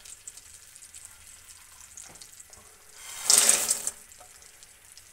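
Almonds, pistachios and cashews poured from a bowl into an aluminium wok of hot desi ghee: one short, dense burst of sound lasting under a second, a little past three seconds in, over a faint steady sizzle.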